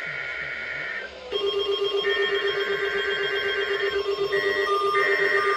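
NOAA Weather Radio SAME header: the screeching digital data bursts that open a required weekly test of the alert system, sent as several bursts of warbling tones. A steady pulsing buzz joins about a second in.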